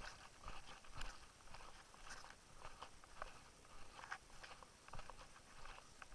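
Faint footsteps crunching on a trail, about one step a second, with scattered small clicks and rustles in between.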